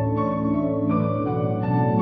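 Instrumental song intro with no singing: sustained keyboard chords that change about every three-quarters of a second.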